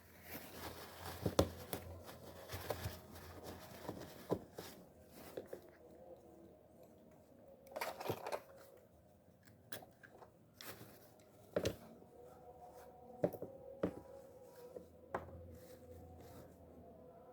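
Scattered small clicks, taps and brief scraping of fishing reel parts being handled and taken apart by hand, over a faint steady hum.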